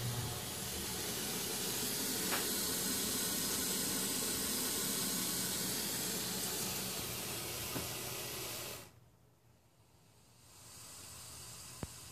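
Nine-foot Colombian boa constrictor hissing: one long, steady breath-hiss that stops abruptly after about nine seconds, then a fainter hiss starts. The snake is upset and defensive. A single click near the end.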